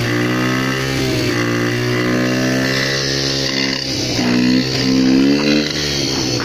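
Yamasaki Sky 72 cc motorcycle's small single-cylinder engine running while being ridden, its pitch rising and falling as the throttle is opened and eased, loudest about five seconds in.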